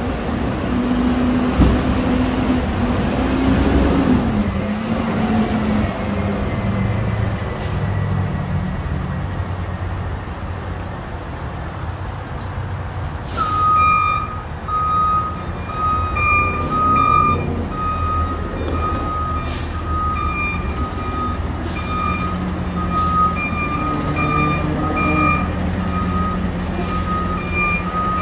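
Peterbilt automated side-loader garbage truck running, with a pitched whine that rises and then falls over the first few seconds. From about halfway, its backup alarm beeps steadily as it reverses, with a few short air hisses.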